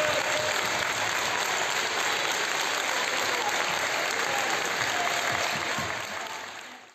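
A group of young children clapping their hands together with their coach; the applause fades out near the end.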